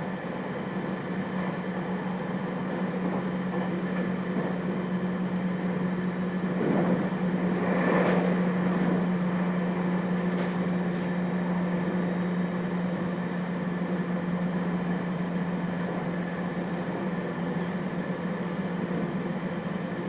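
Interior running sound of a JR Hokkaido 721 series electric train, heard in its motor car with thyristor phase control: wheels on rail under a steady low hum. A brief swell of louder noise comes about seven seconds in.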